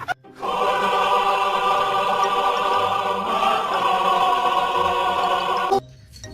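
A choir singing one sustained chord on an open vowel, held steady for about five seconds and then cut off suddenly.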